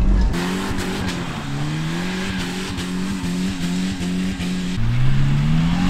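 Piaggio Porter kei truck's small petrol engine revving hard as the truck slides in snow, its pitch rising and falling as the revs change. Near the end the pitch climbs, dips sharply and climbs again.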